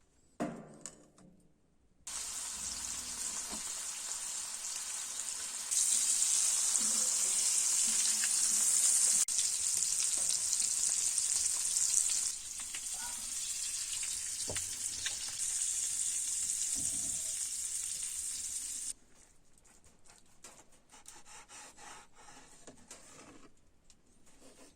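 Food frying with a steady sizzle. It gets louder about 6 seconds in, eases back around 12 seconds, and cuts off abruptly a few seconds before the end, after a brief knock at the start.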